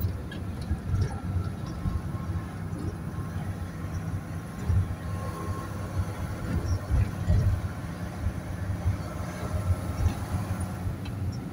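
Vehicle cabin noise while driving: a steady low engine and road rumble with small bumps from the road surface.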